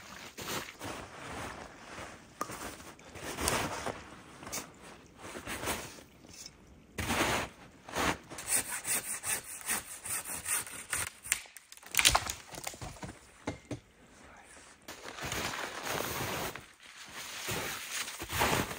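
Wood being hauled and worked in snowy brush: boots crunching in snow and a dead branch dragging and scraping through snow and twigs. Partway through comes a run of rhythmic strokes, and about twelve seconds in a single sharp knock.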